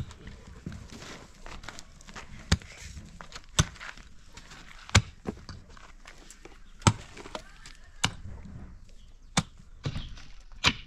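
A series of sharp knocks from a hand tool striking, about eight strong blows at uneven intervals of roughly a second, with fainter taps between.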